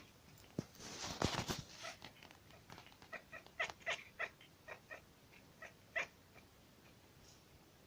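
A cat making a string of short, quick calls in answer to its owner's sneeze: one longer call about a second in, then brief calls two or three a second that die out about six seconds in.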